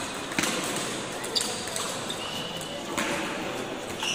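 Table tennis ball clicking sharply off paddles and the table in a rally: three irregular hits about a second or more apart.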